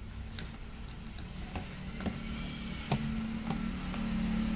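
Light clicks and taps of a capacitor's leads being fitted by hand into a circuit board, over a steady low hum; a low drone grows louder in the second half.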